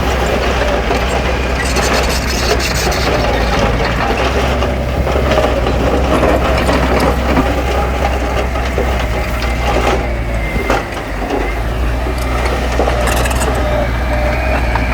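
Diesel-engined heavy earthmoving machinery working: a steady low engine drone with wavering squealing tones, over crunching of stone and mud. The noise eases briefly near the end.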